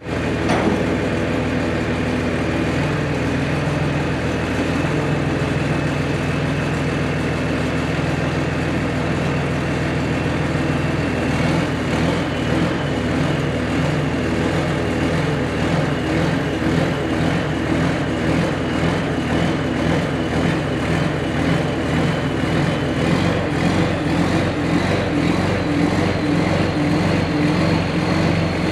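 Crane engine running steadily under load as it hoists a steel dump bed, with a high whine that rises slowly in pitch.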